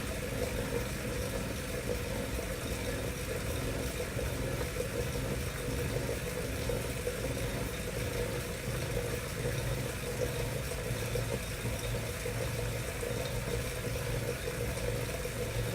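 Wahoo Kickr smart bike trainer running with a steady hum: a constant mid-pitched tone over a low drone that swells and fades slightly in a regular pulse. This is the strange noise the trainer is making, a sign of a fault in the unit.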